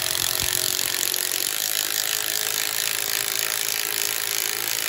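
Cordless impact wrench running steadily under load, driving the harmonic balancer bolt into the crankshaft of a small-block Ford engine.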